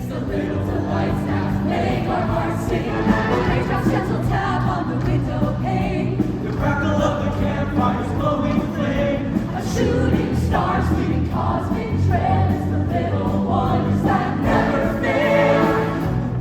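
High-school show choir singing in full voice with instrumental backing, steady low bass notes held under the voices.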